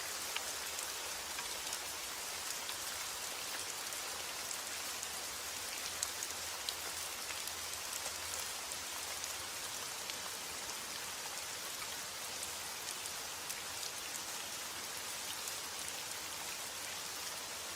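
Steady rain falling on a hard surface: an even hiss of rainfall with many individual drops ticking through it, a few louder drops standing out.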